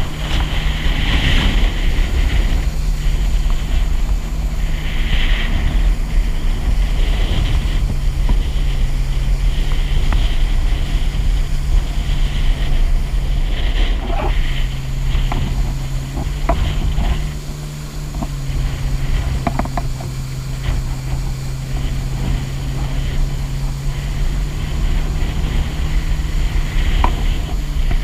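Jet ski engine running under way at speed, its drone shifting in pitch a few times as the throttle changes, over a steady hiss of wind and water spray. A few short knocks come in the second half.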